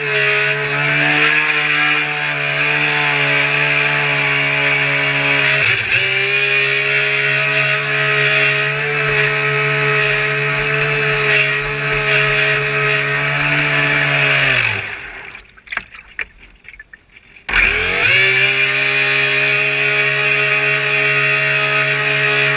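Radio-controlled boat's motor running steadily at speed with a buzzing drone. About fifteen seconds in it winds down in pitch and stops, leaving only a few faint clicks. A couple of seconds later it starts back up abruptly and runs on.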